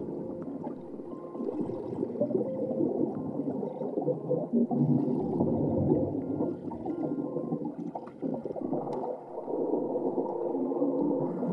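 Muffled underwater gurgling and bubbling, a dense churning sound with little treble, with faint steady tones held beneath it.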